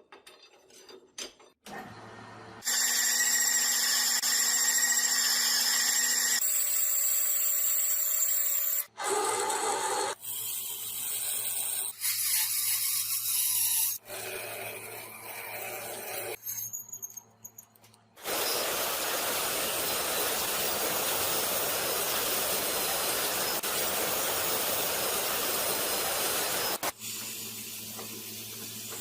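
A run of short, abruptly cut workshop clips: power tools running in turn, mixed with rubbing and filing on the workpiece, with a long stretch of steady grinding or sanding noise in the second half.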